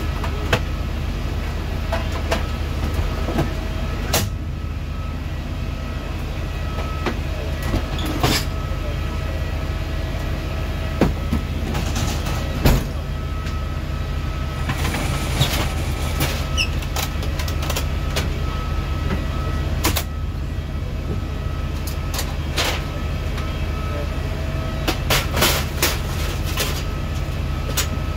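Steady low machine drone with a faint whine, the running equipment around an aircraft door with a catering truck docked, overlaid by scattered metallic clicks and knocks of airline galley trolleys and tray racks being moved and latched.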